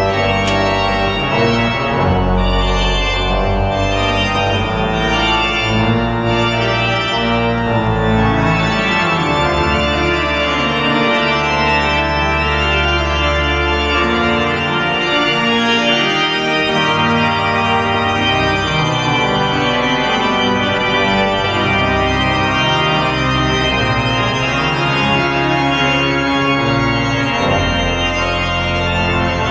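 Church organ played in concert: sustained chords on the manuals over a deep pedal bass line that changes note every second or so.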